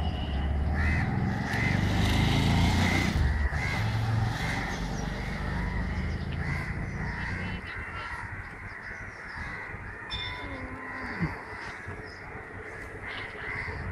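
Crows cawing again and again over a low rumble that fades about halfway through, with one sharp knock near the end.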